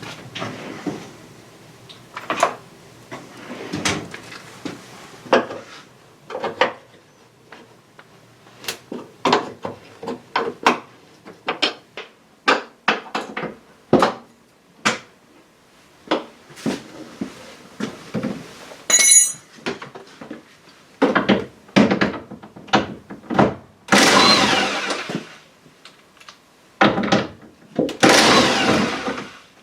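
Hand work on a car's body fittings: a string of clicks, knocks and rattles of tools and small parts. A brief high squeak comes about two-thirds through, and two longer scraping sounds follow near the end.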